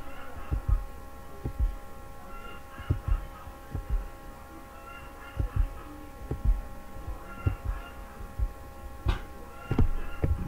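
A steady faint electrical hum with several tones, with soft low thumps coming irregularly about once or twice a second.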